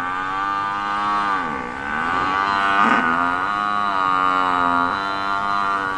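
Water buffalo mooing: one long, drawn-out call. Its pitch dips about a second and a half in and shifts a couple more times before it stops near the end.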